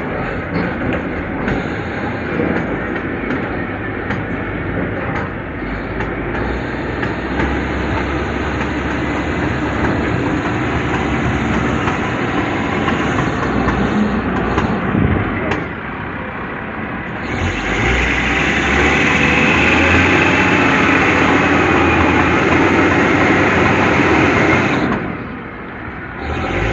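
A heavy vehicle running with a steady low engine note and clattering, growing louder and brighter partway through, then dropping off briefly near the end.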